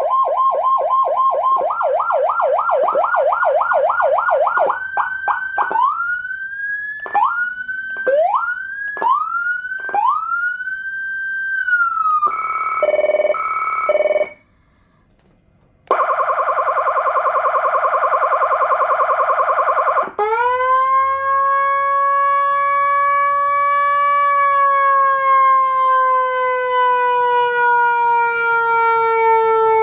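150HX 150-watt electronic siren sounding through its speaker and stepping through its tones. First a fast yelp of about five sweeps a second, then slower sweeps that drop and climb back about once a second, then a brief two-note alternation. After a short pause comes a steady buzzy horn tone for about four seconds, and finally a wail that climbs quickly and then falls slowly.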